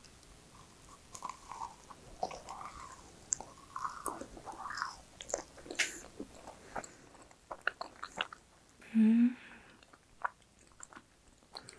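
A macaron being bitten and chewed close to the microphone: soft, scattered mouth clicks and wet smacks of a chewy, dense macaron. A short burst of voice about nine seconds in.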